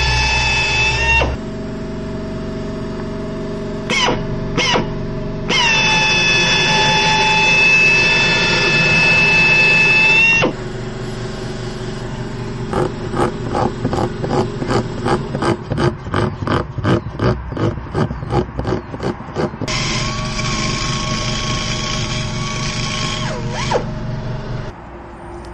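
Pneumatic die grinder whining at high speed in several runs, reaming the puncture and buffing the tyre's inner liner for a mushroom-plug repair. Through the middle it comes in rapid even pulses, about three or four a second, and near the end a run winds down in pitch and stops.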